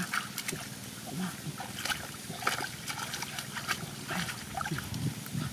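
Hands splashing and squelching in a shallow muddy puddle while groping for fish: a string of small, irregular splashes and wet clicks.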